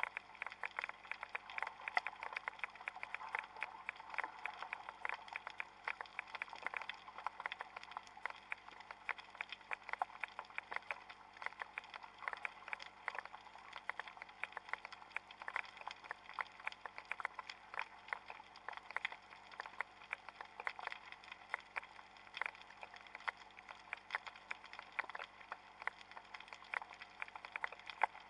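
Underwater crackle heard on a shallow seabed: a dense, steady patter of many tiny irregular clicks.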